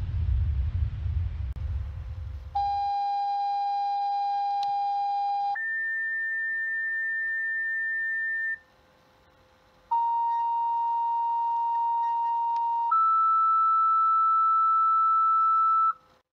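Fire dispatch radio paging tones: two pairs of two-tone sequential pager tones, each a steady pitch held about three seconds, each pair going from a lower tone to a higher one, with a short pause between the pairs. They tone out the volunteer fire company for an EMS call. In the first few seconds a low rumble from the intro's sound effect dies away.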